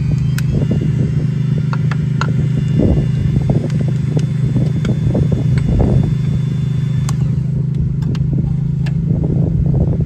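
An engine running steadily with a low, even drone, and light metallic clicks and knocks as a heavy socket is handled and fitted.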